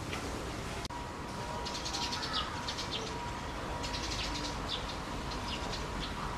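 Small birds chirping: repeated clusters of short, high calls, with a faint steady tone underneath.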